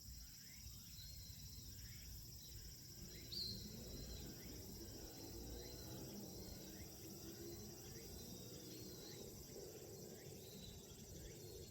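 Faint field ambience: a steady high insect buzz, with a bird repeating a short call over and over and one brighter chirp a few seconds in, over a low rumble.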